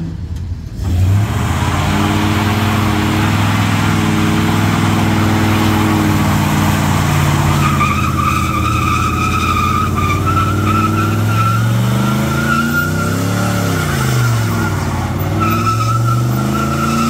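Classic Ford F-series pickup doing a burnout: the engine is held at high revs with the rear tyres spinning. A steady tyre squeal joins about halfway through, and the revs dip and climb again a few seconds before the end.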